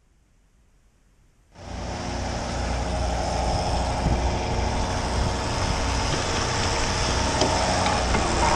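A crab boat's engine and hydraulic crab block running steadily while a buoy and line are hauled, with water rushing along the hull. The sound comes in abruptly about a second and a half in, after near silence.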